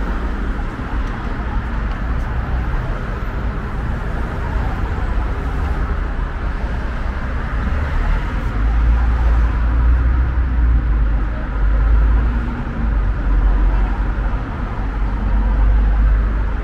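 Busy street ambience: traffic noise with a low rumble that grows louder about halfway through, under the murmur of passers-by talking.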